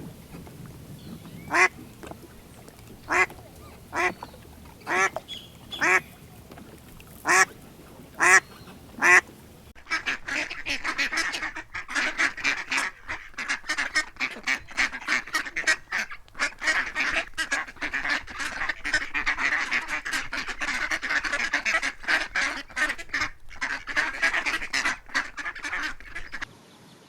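A duck quacking about nine times in separate calls. About ten seconds in, the sound changes abruptly to a dense, continuous chatter of rapid quacks from ducks, which cuts off shortly before the end.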